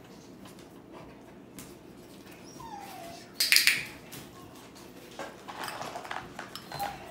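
Chocolate Labrador giving a brief whimper that falls in pitch about two and a half seconds in, followed by a short loud huff of breath, with a few light clicks after it.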